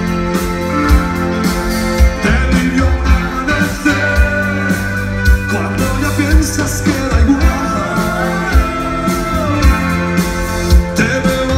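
A rock band playing live, with drums, bass and guitar, and a voice singing in places.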